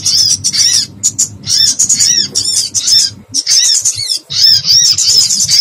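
Distress calls of a small bird caught and pinched, used as a bird-trapping lure: rapid runs of short, high, arched chirps with brief pauses between the runs, over a steady low hum.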